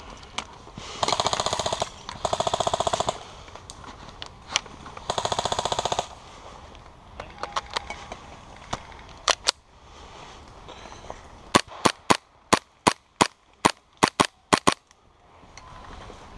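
Airsoft gunfire from a KWA Skorpion gas-blowback SMG: three fast full-auto bursts of about a second each, the first two close together, then single shots, about ten sharp cracks in quick succession near the end.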